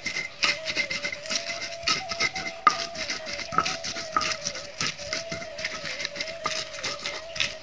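Hand stone grinding whole red chilies on a flat stone slab (batu lado): irregular clacks and scrapes of stone on stone, several a second. A steady high tone runs underneath.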